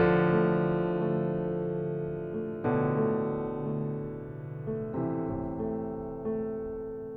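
Slow piano music: four sustained chords, struck a couple of seconds apart, each ringing out and fading.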